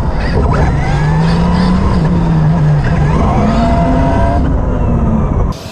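Electric RC monster truck recorded from a camera mounted on the truck: motor whine rising and falling with the throttle over a heavy, steady rumble. The sound drops off abruptly near the end.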